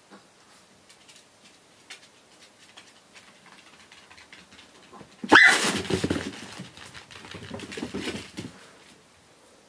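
A chihuahua lets out a sudden sharp yelp about five seconds in, then barks for about three seconds. Before that there are only faint taps of paws on the floor.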